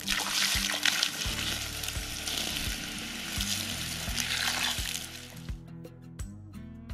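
Water poured from a bucket onto a campfire's hot coals and steel grate, hissing and sizzling as the fire is doused. The hiss stops about five and a half seconds in.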